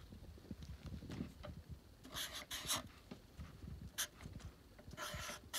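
Sharpie fine-point marker writing on paper: short, faint scratchy strokes about two seconds in and again near the end, with a few light taps between.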